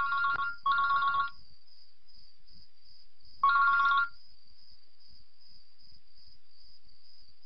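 Mobile phone ringtone: a two-tone electronic ring sounding twice in quick succession, then once more about three seconds later, before it stops.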